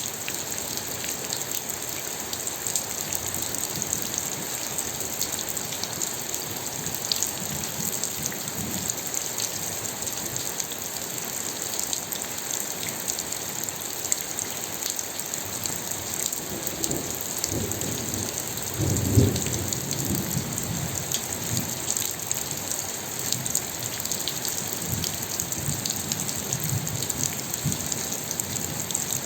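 Steady rain falling, a dense hiss with many small drop ticks. A low rumble of thunder swells and fades about two-thirds of the way through.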